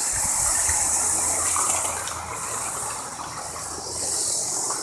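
LEGO train powered by two 9V LEGO motors running along its track: a steady whirring, hissing rush of motor and wheels, with a low hum in the first half, easing off midway and swelling again near the end.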